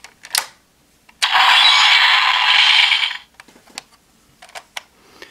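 Hard plastic toy belt buckle being handled: a click, then about two seconds of loud scraping rattle, then a few light clicks.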